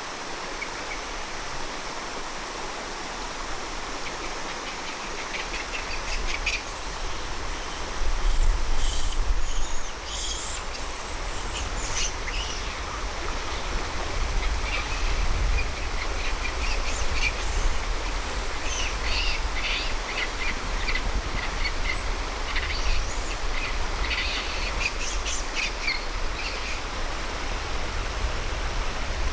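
Steady rush of water under scattered short high chirps, with a low rumble that swells from about eight seconds in.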